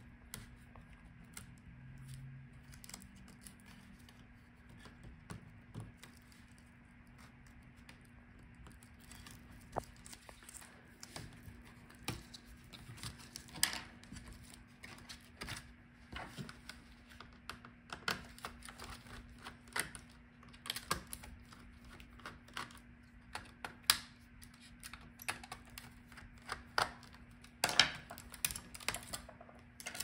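Scattered small clicks and taps from handling an Alienware m17 R4 laptop's internals with tweezers and fingers: cables, tape and ribbon-cable connectors on the motherboard. The clicks come more often and louder in the second half, over a faint steady hum.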